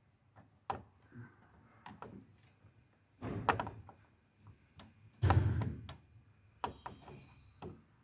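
Irregular knocks and thuds with lighter clicks in between: a heavier thump about three seconds in and a louder one just after five seconds.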